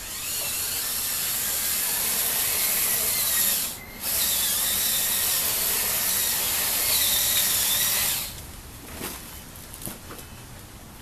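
Small electric motor and gearing of a radio-controlled Scania 8x8 model truck running: a steady high whine with hiss that drops out for a moment just before four seconds in, runs on, and cuts off about eight seconds in.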